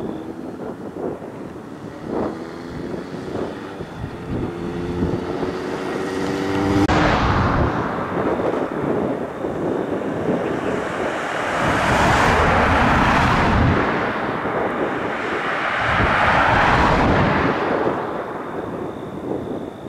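Several vehicles passing one after another on a highway. An engine note climbs as the first one approaches, then road noise swells and fades three times, loudest about 7, 12 and 17 seconds in.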